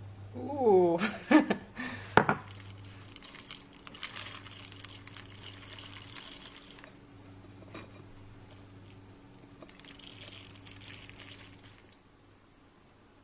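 Chocolate sprinkles (hagelslag) pouring from their box onto bread, a fine rattly hiss in two spells. Near the start there is a brief voice and a couple of sharp knocks, the loudest sounds.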